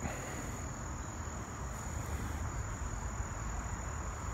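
Steady high-pitched chirring of crickets or similar insects in the grass, one unbroken tone, with a low rumble on the microphone beneath it.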